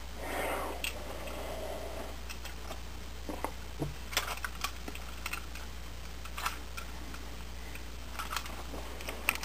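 Faint, scattered clicks and taps of a plastic Transformers Bludgeon action figure being handled, over a steady low hum, with a short soft rush of noise near the start.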